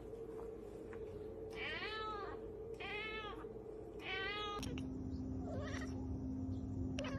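Persian cat meowing: three drawn-out meows, each rising then falling in pitch, in the first four and a half seconds. A steady low hum then takes over.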